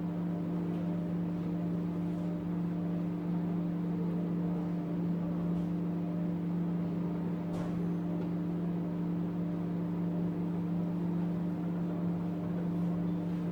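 Recco 1200 W microwave oven running while heating a cup of water, a steady electrical hum that holds unchanged throughout.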